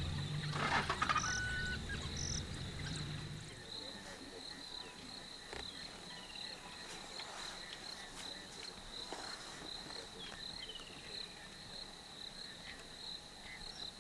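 Insects chirping steadily in a high, evenly pulsing trill. In the first few seconds a low rumble and some rustling run under it, then cut off suddenly.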